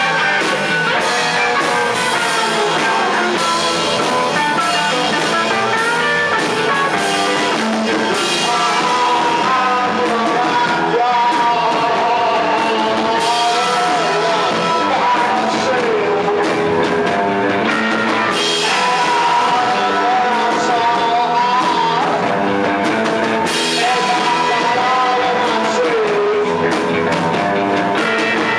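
Live rock band playing: distorted electric guitars over a drum kit, with a voice singing. Steady and loud, with no breaks.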